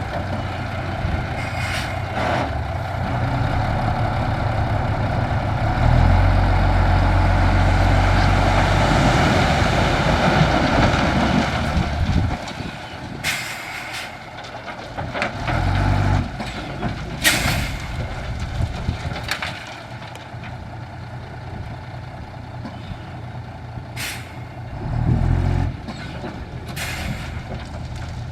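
Heavy diesel dump truck engine running, louder for several seconds early on and then settling lower. Several short air-brake hisses cut in, about five of them in the second half.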